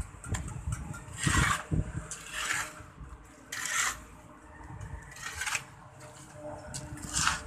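Masonry work on a block wall: about five short scraping strokes, a second or two apart.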